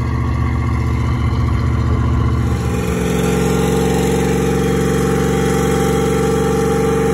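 Full-size SUV V8 engines run hard during burnouts. About two and a half seconds in, the engine note changes to one held at high revs that slowly creeps higher as the rear tyres spin.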